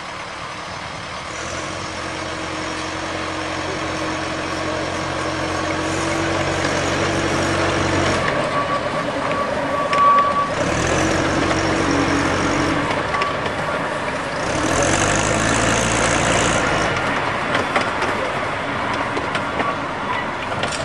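Diesel engine of a 15-inch gauge locomotive working as it moves its train of coaches, the engine note changing pitch a few times. Three short hisses cut in over it.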